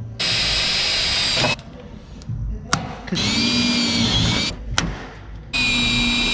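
Cordless drill boring holes through a sheet-metal panel, run in three bursts of a second or two, each with a steady high whine, and short pauses between them.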